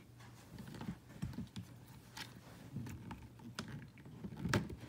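Scattered light clicks and knocks as a Morf board's wheel truck is worked against its quick-release mounting plate and release tab, trying to get the wheel off.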